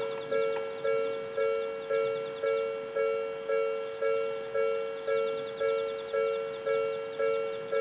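Japanese railway level-crossing warning bell ringing: an electronic two-note ding struck about twice a second, each strike sharp and fading before the next.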